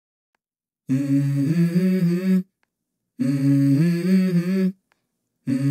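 Background music: a low voice humming a short wordless melody three times, each phrase about a second and a half long with silent gaps between, starting about a second in.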